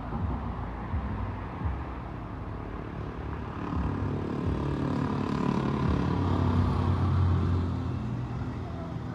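Heavy diesel engine running steadily with a low rumble. It grows louder about halfway through, then eases off near the end.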